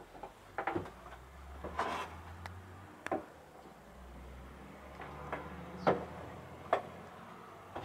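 Cabinet doors and drawers in a camper van's interior being opened and shut: about half a dozen separate knocks and latch clicks, with a faint low hum in the first half.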